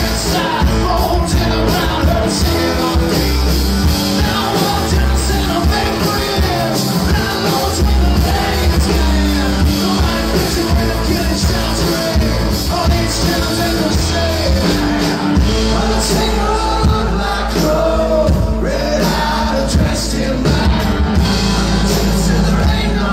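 Live country band playing a song with acoustic guitars, upright bass, fiddle and drums.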